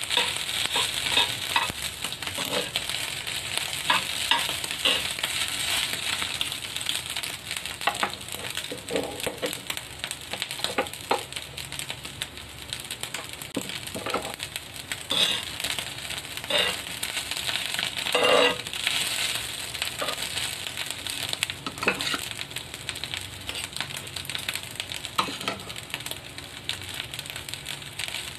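Fried rice sizzling steadily in a pan while a metal spoon and tongs stir it, with irregular clinks and scrapes of metal on the pan.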